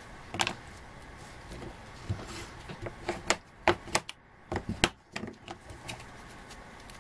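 A paper-covered gift tag being handled and rubbed down with a bone folder on a craft mat: irregular light taps, scrapes and rustles, with a few sharper clicks and knocks in the second half.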